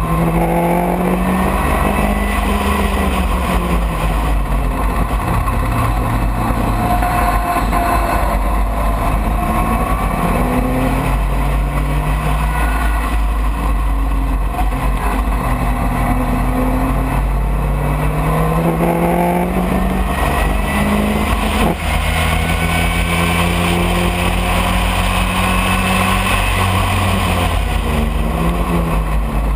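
Open-cockpit sports racing car's engine at race pace, heard from the cockpit: the revs climb repeatedly through the gears and drop away on lifts and downshifts, with a steady rush of wind and road noise underneath.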